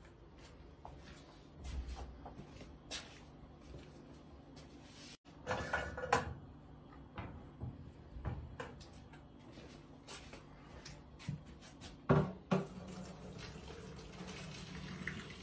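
Knocks and clatter of a metal cooking pot being handled on a gas stove and set against a stainless sink, with a sharp knock about twelve seconds in. Near the end comes a steady low rush of the potatoes' cooking water being drained from the pot into the sink.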